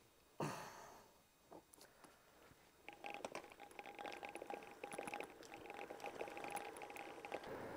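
Romet bicycle getting under way: a knock about half a second in, then faint steady rolling noise with a rapid crackle of small clicks.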